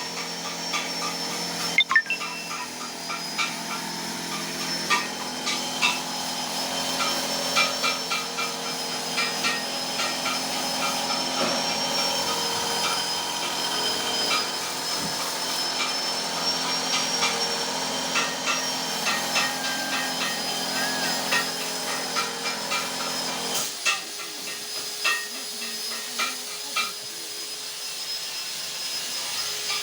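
Areca nut splitting machine with two blades running: a steady motor whine with a lower hum, and frequent irregular clicks and woody knocks as nuts are split. The lower hum drops out about three-quarters of the way through while the whine and clicking go on.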